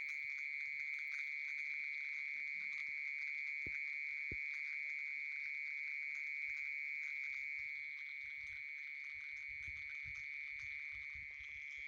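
Mole cricket singing from its burrow in grassed ground: a steady, unbroken high trill that holds one pitch throughout.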